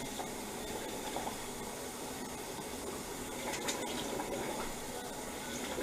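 Water running steadily from a tap into a sink, with a few faint clicks and splashes.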